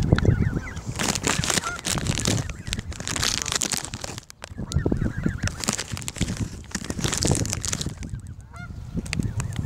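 Young geese calling close by, with short high-pitched calls among honks, and water splashing as they move at the surface.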